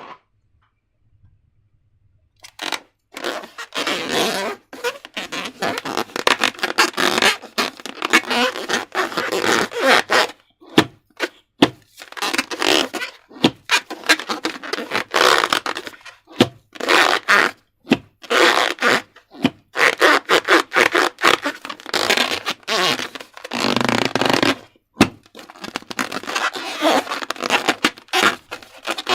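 Slime being handled and worked: dense, irregular sticky noise full of small pops and clicks, beginning about two and a half seconds in.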